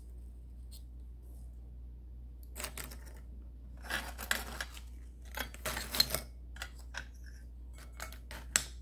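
Dried sand dollars and shells clicking and rattling against one another and the glass jar of sand as they are handled. After about two and a half quiet seconds come several short clusters of clicks, with scattered single clicks toward the end.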